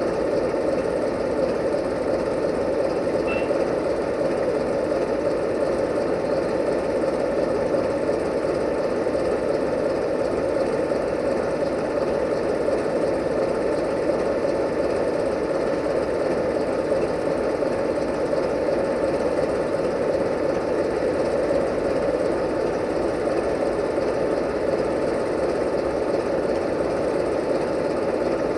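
Diesel locomotive engine idling steadily with an even knocking beat.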